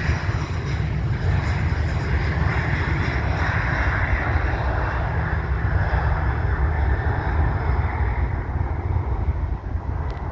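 An airliner's engines run at high power on the runway for take-off: a steady roar with a deep rumble underneath.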